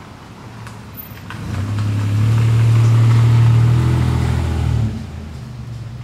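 A low engine hum swells up about a second and a half in, holds loud for about three seconds, then drops suddenly to a quieter hum near the end.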